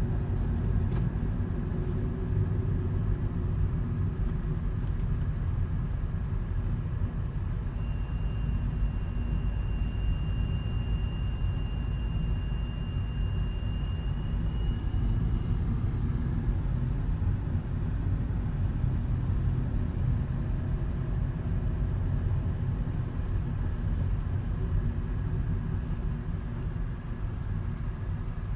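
Opel Astra K 1.6 turbo running with a low steady rumble. For about seven seconds in the middle comes a thin, high, nearly steady squeal tied to the air-conditioning system. It appears at part throttle once the cabin has cooled.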